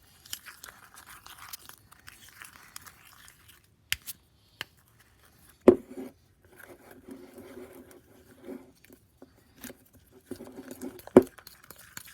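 Sticky fluffy slime being stirred in a bowl with a fork or spoon: wet squelching, tearing and scraping, broken by several sharp knocks of the utensil against the bowl.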